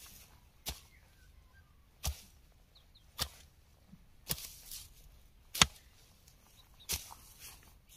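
Thistle grubber chopping into pasture turf to grub out thistles: about six sharp strikes, one every second or so, some followed by a short rustle of torn grass and soil.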